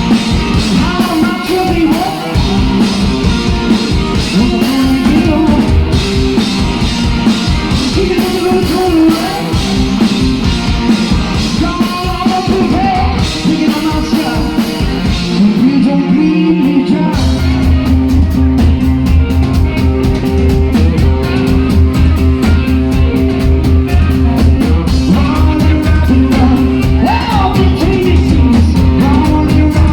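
Live rock band playing loud, with singing over electric guitar and a drum kit. About halfway through, the low end thickens into heavy held notes under the vocal.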